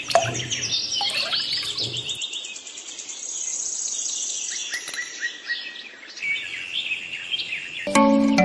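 Birds chirping, with many quick high calls overlapping and a fast high trill in the middle.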